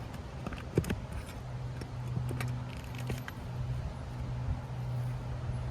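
Light metallic clinks and ticks of roofing hand tools working shingle fasteners loose, scattered through the first three seconds. A steady low hum starts about a second and a half in.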